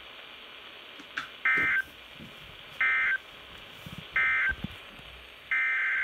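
Weather radio's speaker sounding EAS/SAME digital data bursts, a shrill buzzing warble. Three short bursts about a second apart mark the end of the flood warning's message. A longer burst near the end begins the header of a second alert.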